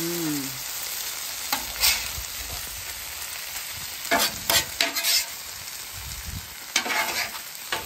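Corned beef hash sizzling on a hot flat-top griddle as a steel spatula scrapes under it and flips it. The steady sizzle is broken by several sharp scrapes and taps of the spatula on the griddle surface.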